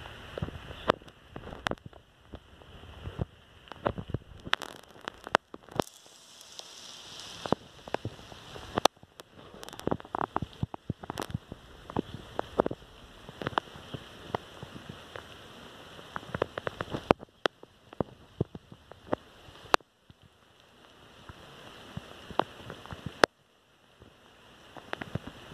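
Outdoor storm noise on a handheld recording: a steady rushing hiss with many irregular sharp taps and clicks, the kind raindrops make striking the microphone. It breaks off abruptly several times where separate clips are joined.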